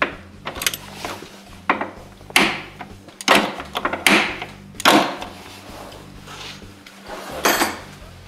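A string of about ten sharp, irregular clacks and rattles from hand tools and parts being handled on the snowmobile, over background rock music.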